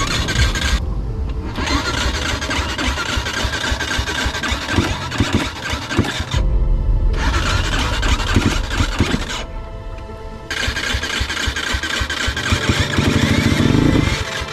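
Kayo K4 enduro motorcycle engine being cranked on its electric starter and running roughly at low revs, with a fast uneven pulsing. The rider puts it down to a sticking starter that keeps turning on its own.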